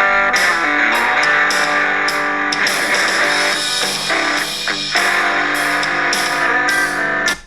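Guitar-led rock music with no vocals, played through a smartphone's loudspeaker. It has little deep bass. The sound drops out briefly right at the start and again at the end.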